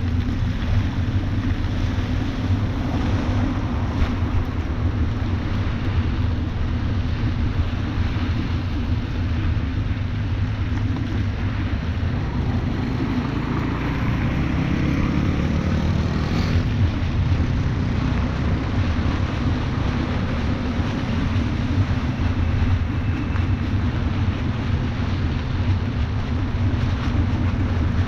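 Wind rushing over the microphone of a moving bicycle, over steady rain and the hiss of a wet road. A motor vehicle passes around the middle, its sound swelling and sweeping in pitch before it fades.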